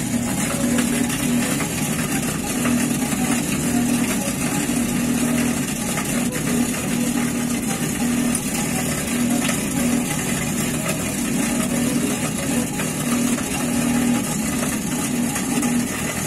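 Frigidaire front-load washing machine running its final spin cycle: a steady motor hum with a tone that swells and drops every second or so. It spins but does not drain, the sign of a busted drain pump.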